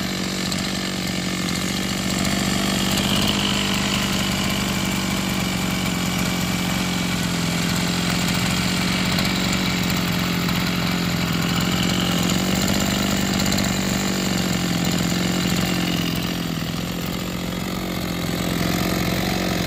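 Maruyama KC26M brush cutter's 26cc two-stroke engine idling steadily, running very smoothly, with its throttle cable not yet connected.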